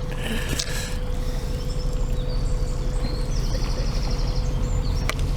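Narrowboat's diesel engine running steadily as the boat passes on the canal, a low rumble with a steady hum that grows a little louder. A brief rustle comes about half a second in, and a couple of sharp clicks near the end.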